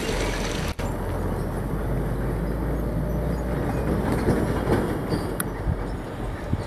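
Diesel engine of a heavy three-axle box truck pulling steadily through a bend, a low drone under tyre and road noise, broken by a momentary dropout just under a second in.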